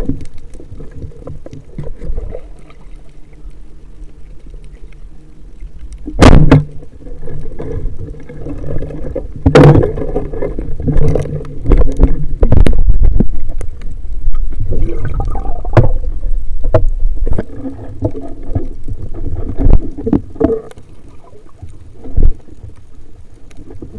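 Underwater sound through a speargun-mounted camera: a muffled low rumbling and bubbling, broken by several loud knocks and thuds, busiest in the middle, as the diver spears a fish and handles it on the spear.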